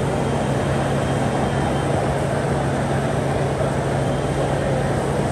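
Steady background noise of an industrial machinery exhibition hall: an even roar with a constant low hum and no distinct events.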